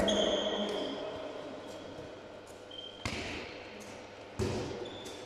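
Handball play on a sports hall court: a few echoing thuds of the ball being thrown, caught and bounced, the loudest about three and four and a half seconds in, with short high-pitched sneaker squeaks on the floor.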